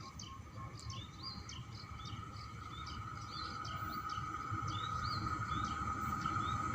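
Small birds chirping over and over in short rising chirps, while a low rumble and a steady hum slowly grow louder as a train approaches.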